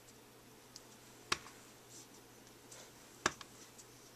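A small wood-mounted rubber stamp tapped down onto cardstock on a work mat, stamping a border of ants one by one. Two sharp taps about two seconds apart, with a few fainter ticks between them.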